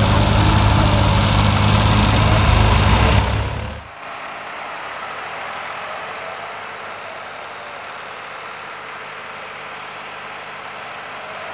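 New Holland 3630 TX Super tractor's three-cylinder diesel engine running as it pulls a rotavator through the soil. Loud and close at first, then it cuts suddenly to a quieter, more distant engine sound about four seconds in.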